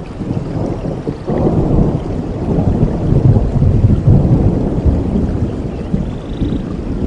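Thunder rumbling during a rainstorm: a low roll breaks out sharply about a second in and keeps rumbling, over the steady hiss of rain.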